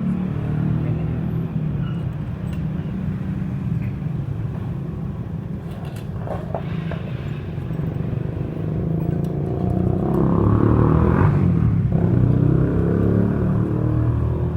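Motor vehicle engine running with a steady low rumble, swelling louder about ten seconds in and easing off near the end.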